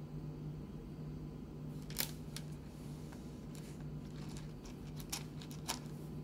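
A handful of sharp little clicks of wet rough opal pieces knocking against each other as they are handled and picked through, the loudest about two seconds in, over a steady low hum.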